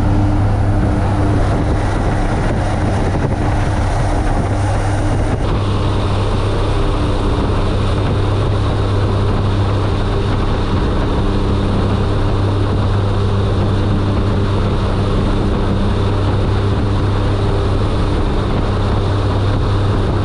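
DHC-6 Twin Otter's twin turboprops running steadily in flight, heard from inside the cabin as a loud, even propeller drone with a strong low hum. The tone shifts slightly about five seconds in.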